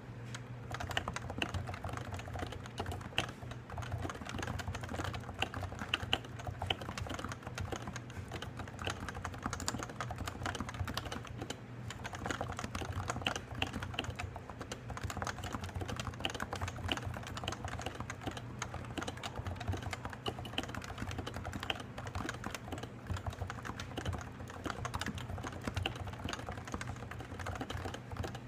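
Continuous fast typing on a Topre Realforce keyboard with 55 g electrostatic-capacitive rubber-dome switches: a dense run of muted keystrokes, with a brief lull about twelve seconds in. A steady low hum runs underneath.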